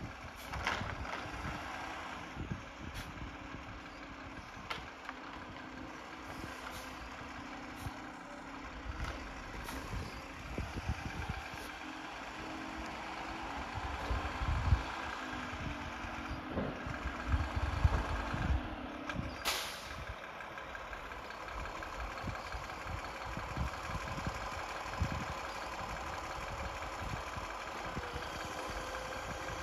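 Mack automated side-loader recycling truck's engine running steadily while its hydraulic arm lifts and empties roadside carts, with scattered knocks and one sharp bang about two-thirds of the way through.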